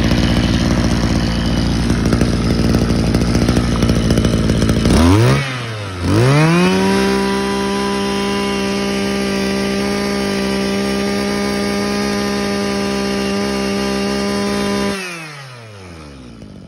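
Mitsubishi TL26 two-stroke brush cutter engine run at high revs, throttle let off briefly about five seconds in, then revved back up and held at a steady high-pitched whine. Near the end the throttle is released and the revs fall smoothly back to idle.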